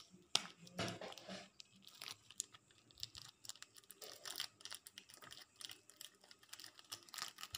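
A small plastic bag being torn open and handled, crinkling and crackling, with a sharp snap just after the start.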